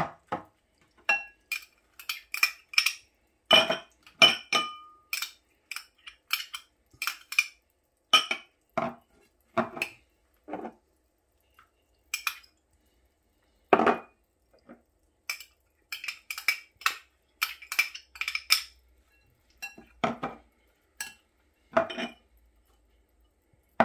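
Metal spoon clinking and scraping against glass bowls as chopped vegetables are tipped into a glass mixing bowl: a run of irregular sharp clinks, some with a short glassy ring.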